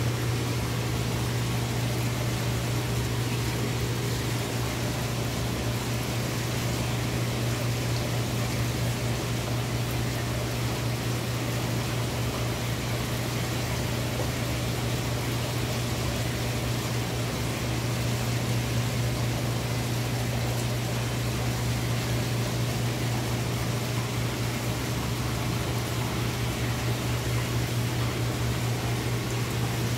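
Aquarium filtration equipment running: a steady low hum under an even hiss.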